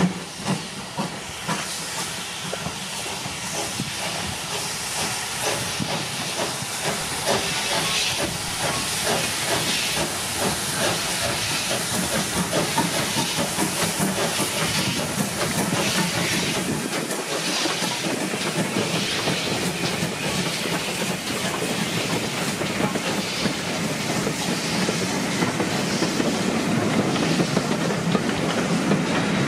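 Two steam locomotives double-heading a passenger train pass close by, their exhaust beats and steam hiss growing louder as they approach. The carriages then roll past.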